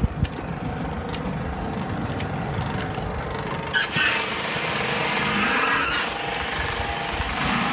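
Roller coaster car moving along a steel track over a row of rubber drive tyres: a steady mechanical rumble with a few sharp clicks in the first seconds, growing rougher a little after the middle.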